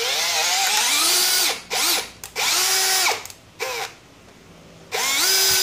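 Cordless brushless hammer drill's motor driving an M10 tap into steel in stop-start trigger bursts: a long run whose whine climbs and wavers in pitch, several short blips, a pause, then another run near the end. The chuck is not getting a grip on the tap's square shank, so the tap slips in it.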